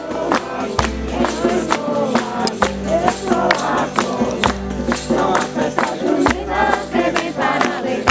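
A group of voices singing a hymn together, with a steady beat of shaken or struck hand percussion at about two to three strokes a second.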